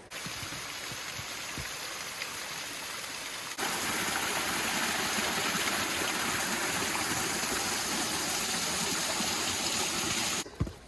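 Steady rush of flowing water from a creek or waterfall, stepping abruptly louder about three and a half seconds in.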